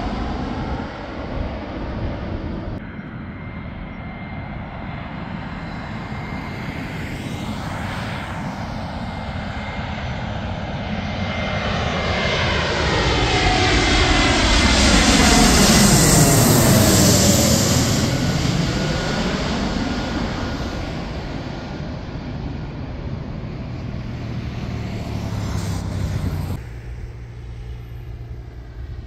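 Jet airliner on final approach passing low overhead, its engine noise swelling to a loud peak about halfway through and then fading as it moves away. A steady whine is heard within the engine noise.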